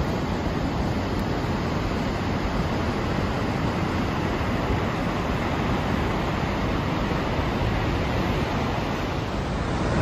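Dettifoss, a waterfall with a huge volume of water, rushing: a steady, deep, unbroken roar of falling water.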